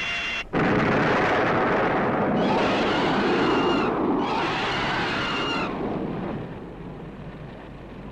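A 1960s tokusatsu TV sound effect: a hissing ray-beam sound with a few steady high tones for about half a second. Then a loud explosion sound effect sets in as the monster is blown up. It holds for about five seconds and fades out near the end.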